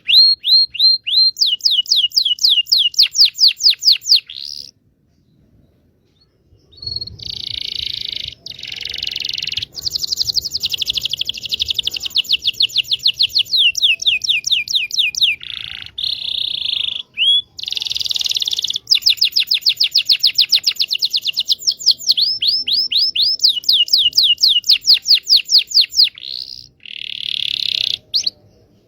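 Canary singing: long, fast trills of repeated sweeping notes, with a pause of about two seconds roughly five seconds in.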